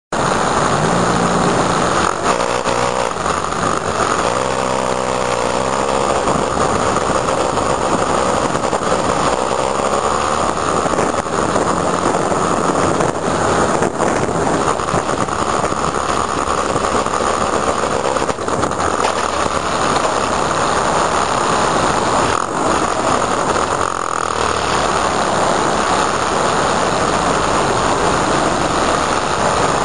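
Onboard sound of a motorcycle riding through city traffic: the engine runs under constant wind noise on the microphone, its note shifting during the first few seconds.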